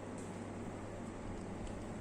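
Steady low hum and hiss of background room noise, with no distinct sounds standing out.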